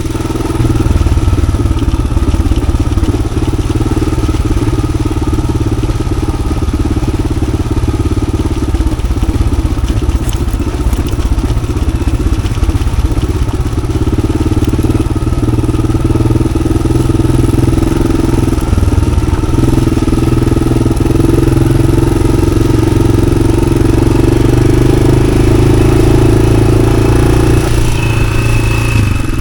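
Yamaha XT600 single-cylinder four-stroke engine with an Arrow exhaust, running steadily while the bike is ridden; its pitch climbs slowly over the last several seconds and falls off shortly before the end.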